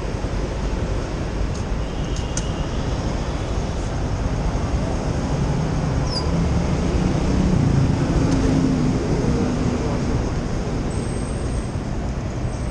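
Steady street traffic noise with a low engine hum, growing louder about six to nine seconds in.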